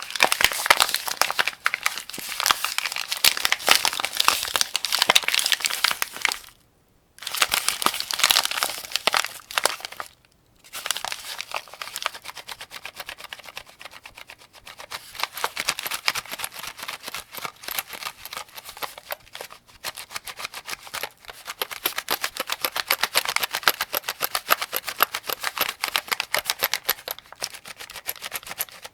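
Cartridges being loaded into a 75-round AK-47 drum magazine: dense, rapid clicking and rattling, broken by two short pauses about 7 and 10 seconds in.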